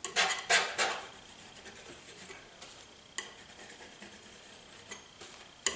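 Palette knife scraping through oil paint: three quick strokes in the first second, then fainter scrapes and a couple of light clicks of the knife against a hard surface.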